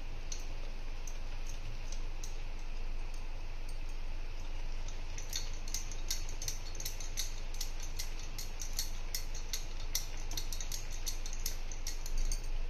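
Wire whisk beating thick cake batter in a glass bowl, its wires ticking against the glass. The ticks are sparse at first and from about halfway come steadily, about three a second.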